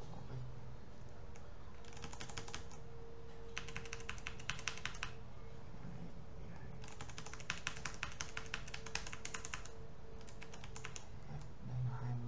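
Rapid light clicking from computer controls at a desk, in four runs lasting one to three seconds each. A faint steady hum runs underneath.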